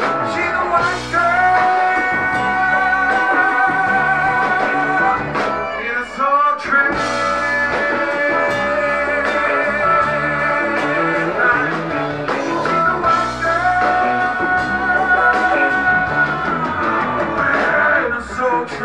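Live funk-rock band, guitar and bass playing a repeating groove, under long wordless sung notes held with vibrato, three of them in a row.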